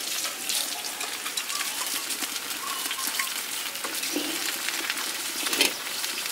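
Bánh xèo batter sizzling and crackling in a hot pan as the pancake fries, with many small pops and one sharper crack near the end.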